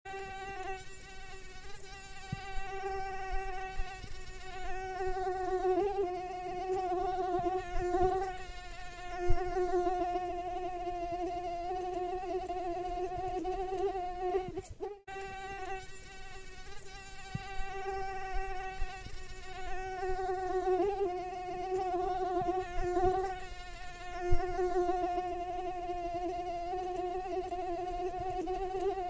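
Mosquito wing whine: a steady high buzzing tone with many overtones, wavering slightly in pitch, broken briefly about halfway through.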